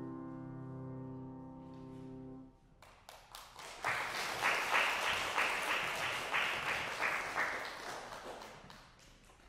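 A grand piano's last chord ringing and slowly fading, then stopping about two and a half seconds in. An audience then breaks into applause, which builds quickly and gradually dies away near the end.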